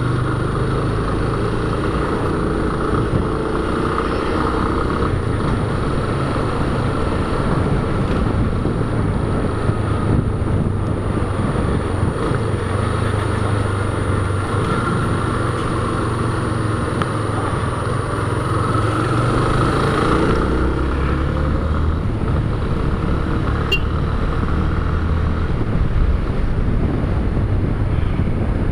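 Motorcycle engine running as the bike rides along at low city speed, with road and wind noise over it. The engine note shifts lower about twenty seconds in.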